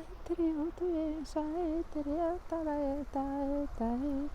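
A woman chanting 'light language', a string of wordless sung syllables in a level, sing-song melody, about two to three short notes a second with brief breaks between them.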